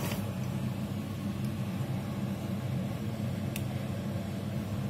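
Steady low mechanical hum of a running motor or fan, with one faint tick about three and a half seconds in.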